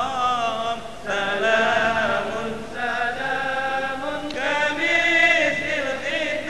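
Choir of primary-school pupils singing, held notes with vibrato in phrases that break and start again every second or two.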